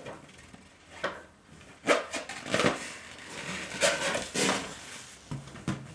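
Toddler grappling with large inflated latex balloons: a string of short, irregular bursts of rubbery squeaks and pats on the balloon skin. The loudest burst comes about two seconds in.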